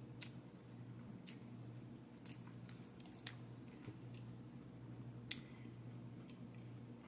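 Close-miked chewing of a salad, with a handful of short, sharp clicks spread through it over a steady low hum.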